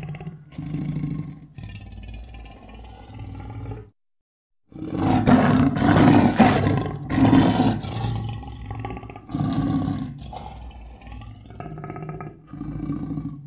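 Sound-designed Giganotosaurus roars and growls: a string of deep creature calls. The sound stops dead for under a second about four seconds in. The loudest, roughest roar follows the gap and lasts about three seconds, and shorter growls come after it.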